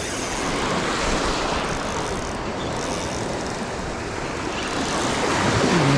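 Small lake waves washing and breaking onto the shore: a steady rushing noise.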